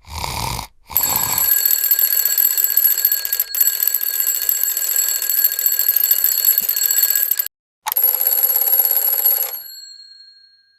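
Alarm clock ringing with a fast, continuous ring after a brief low sound. It cuts off suddenly about seven and a half seconds in, then rings again briefly and dies away.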